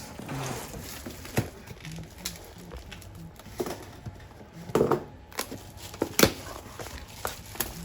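Packaging being handled while an e-bike's box is unpacked: a rustle near the start, then scattered sharp knocks as parts and packing are moved.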